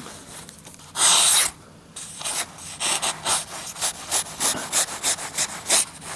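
Pocket knife blade slicing light cardboard: one long scratchy cut about a second in, then a run of short quick strokes, two or three a second. The knife is cutting fairly well, sharp out of the box.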